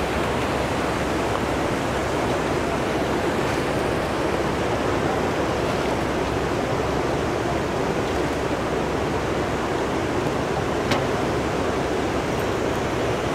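Steady rushing of floodwater, an even noise that neither rises nor falls, with a single sharp click about eleven seconds in.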